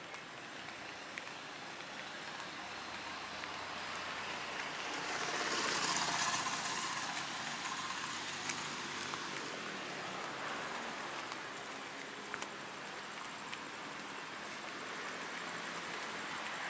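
Road traffic noise, swelling as a vehicle passes about six seconds in.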